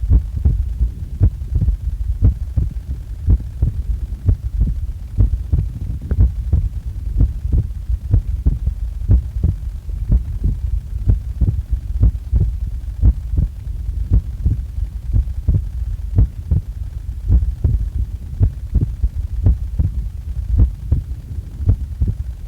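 A person's heartbeat, recorded just after waking: a steady rhythm of low thumps, a little more than one beat a second.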